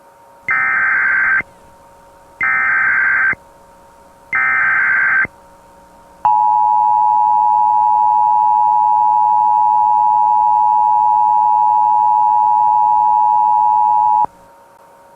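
Emergency Alert System header: three bursts of SAME digital data tones, each about a second long and about two seconds apart. Then the EAS two-tone attention signal sounds steadily for about eight seconds and cuts off sharply.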